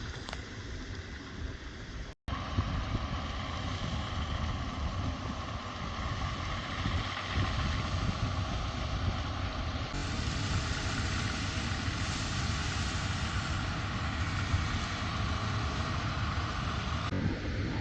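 Steady vehicle engine and rumble with wind noise. The sound drops out briefly about two seconds in and shifts abruptly near the end.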